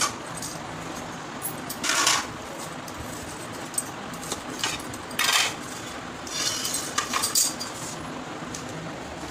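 Wheel pizza cutter rolling through a crisp, ghee-toasted bread sandwich on a plastic chopping board: several short cutting strokes a second or two apart, with a cluster of them near the end.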